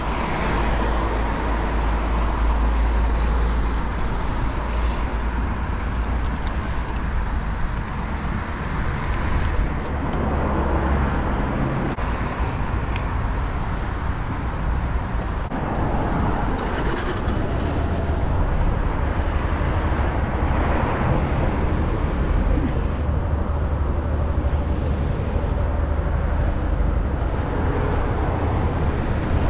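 Road traffic going by, with a few swells as cars pass, over the steady low rumble of a motorcycle engine idling close by.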